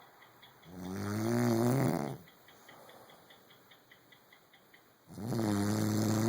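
Snoring: two long snores, each lasting over a second, about four seconds apart, the second one starting near the end.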